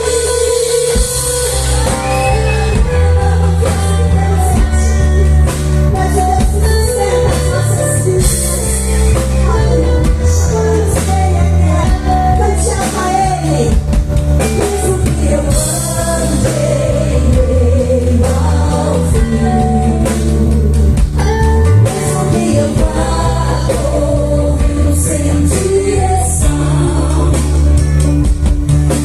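Live Christian worship band playing a full-band song: singing over drum kit, bass and guitar.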